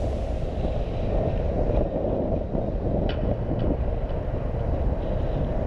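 Motorcycle engine running as the bike moves slowly through traffic, under a steady low wind rumble on the camera microphone.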